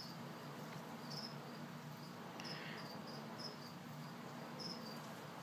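Cricket chirping in short, high chirps roughly once a second, over a faint steady low hum.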